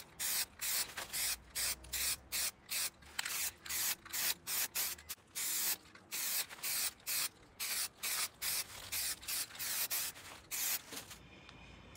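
Aerosol spray-paint can spraying exhaust paint in short quick bursts, about three a second, stopping near the end.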